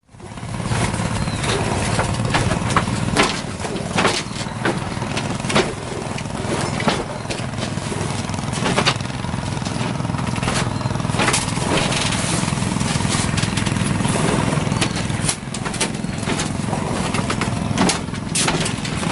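A small engine running steadily, with frequent short clicks and knocks over it.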